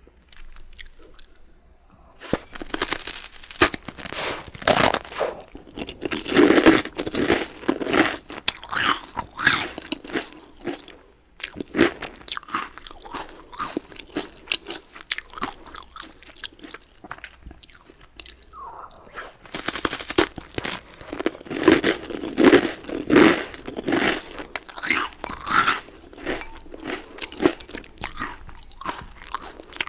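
Close-miked eating: crunching bites and chewing of a baguette with vegetable soup, in irregular runs with short lulls about eleven and eighteen seconds in.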